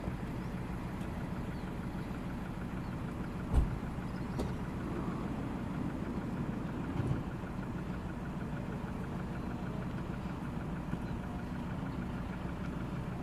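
Passenger van engine idling steadily, with a single loud thump about three and a half seconds in and a lighter knock around seven seconds.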